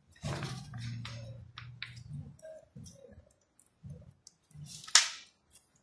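Hands handling a plastic piping bag and soft dough: scattered clicks and rustles, with one sharp, loud crackle of plastic about five seconds in.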